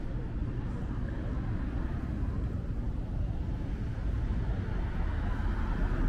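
Steady city street ambience with traffic noise, growing slightly louder near the end.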